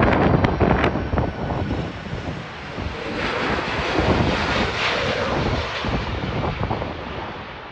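Jet engines of a Delta Air Lines Boeing 767 on final approach with its gear down, passing low overhead. The jet noise swells about three seconds in and then eases off. Wind rumbles on the microphone in the first second.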